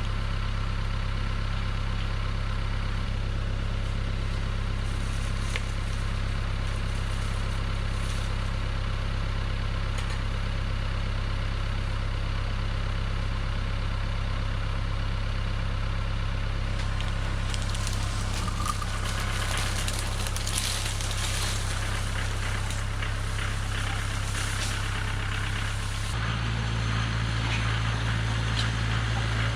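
Mahindra tractor's diesel engine running steadily. Partway through, brush crackles and snaps under it, and near the end the engine note steps up higher and a little louder.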